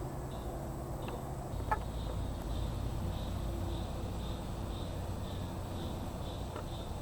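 Outdoor nature ambience: a steady low rumble with a faint high chirp repeating about twice a second, starting partway through, and a few scattered clicks.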